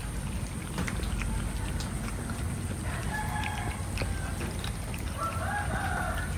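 Cats feeding on raw meat, with scattered small clicks, and two drawn-out animal calls, one about three seconds in and another about five seconds in, over a low steady rumble.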